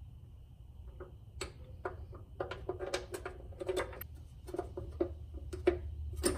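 Irregular small metallic clicks and taps as a bolt, washers and nut are handled and fitted by hand through a rock slider into the steel frame rail, over a low steady hum.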